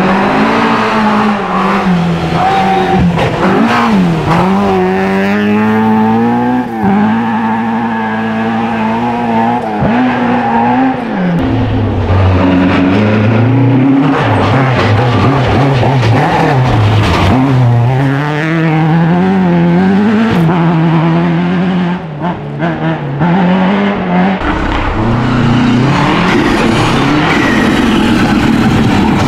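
Rally cars taking a gravel bend one after another: Mk2 Ford Escorts and then a Subaru Impreza. Their engines are loud throughout, and the revs climb and drop again and again as each car lifts off and accelerates through the gears.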